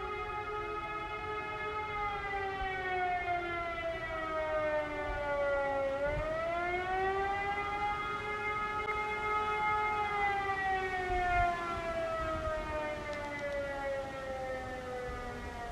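Civil-defence siren sounding in the annual siren test, its pitch sinking slowly for about six seconds, rising quickly, holding briefly, then sinking again: a rising-and-falling wail.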